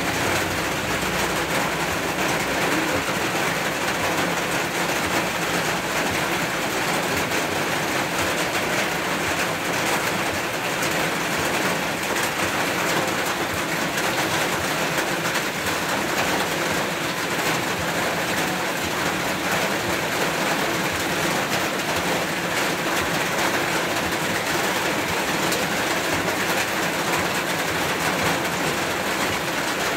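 Rain pouring down steadily, a loud, even hiss that does not let up.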